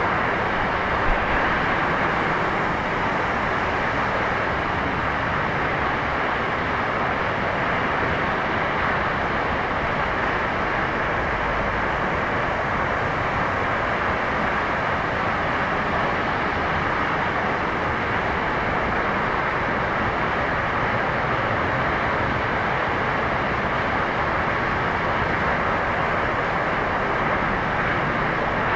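Water pouring down from above and splashing onto a stone floor in a rock grotto: a steady, loud rushing hiss.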